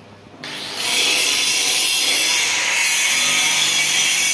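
Handheld angle grinder working steel, starting about half a second in and then running steadily with a loud, high hiss.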